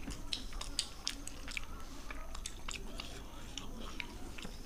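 Wet chewing and small, irregular mouth clicks of people eating syrupy rasgullas.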